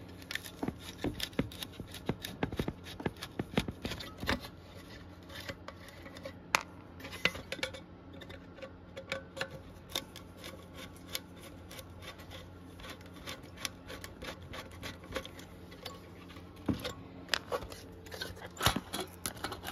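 Small hard parts and hand tools being handled on a workbench: irregular clicks, taps and light scrapes throughout, over a faint steady electrical hum.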